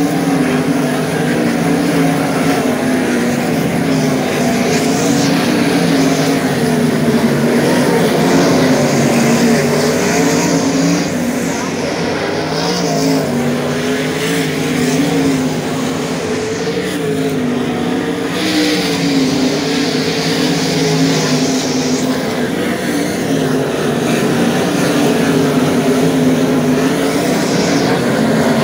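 A field of 410 sprint cars' V8 engines running together as the cars circle a dirt oval. The pitch rises and falls continuously as the pack goes around.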